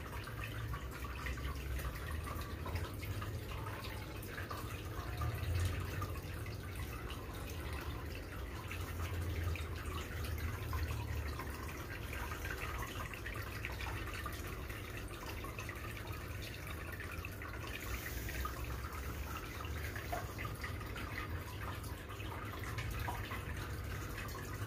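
Aquarium water trickling and bubbling steadily, with a low rumble underneath.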